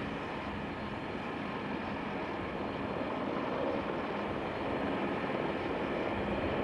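Airbus A220-300 jetliner on final approach, gear down, its twin Pratt & Whitney PW1500G geared turbofans giving a steady rushing noise with a thin whine that slowly grows louder as it nears.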